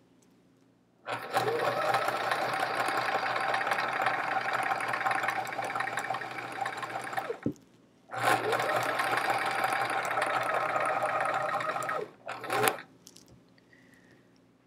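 Electric sewing machine stitching at a steady speed in two long runs, about six and then four seconds, with a short stop between them. A brief final burst of stitching comes near the end.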